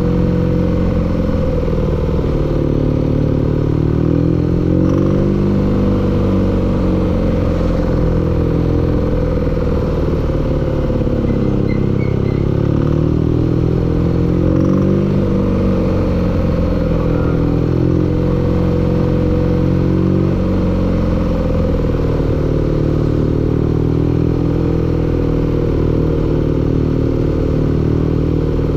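Engine running steadily with a knocking clatter, its speed wavering slightly up and down.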